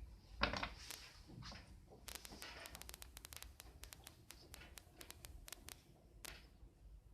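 Hands working with small metal parts: a sharp knock about half a second in, a brief scrape, then a rapid run of light metallic clicks and taps.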